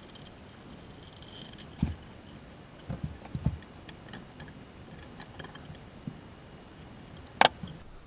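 Vise grip locking pliers working the plastic locking nut of a toilet flush valve against the porcelain tank: scattered light clicks, knocks and small rattles, with a sharper click near the end. The nut is being turned snug, about a quarter turn past hand-tight, to seal the valve to the tank.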